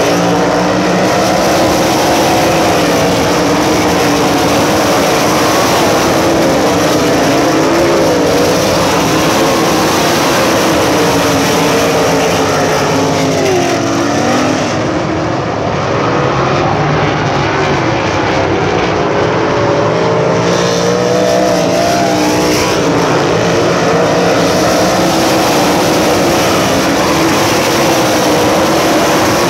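A pack of USAC Silver Crown open-wheel race cars running together around a dirt oval. Many engines sound at once, their pitches rising and falling as the cars pass and throttle through the turns.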